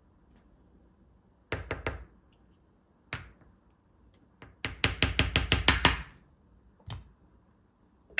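Kitchen knife chopping on a cutting board: a few strokes, then a quick run of about a dozen, with single chops in between.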